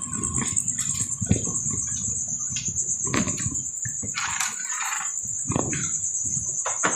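Crickets chirring steadily at a high pitch, over irregular knocks, clinks and rustling as pots and containers are handled on a table.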